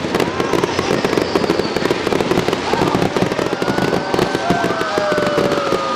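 Fireworks display: dense, rapid crackling and popping bursts. Long whistling tones glide over them in the last two seconds.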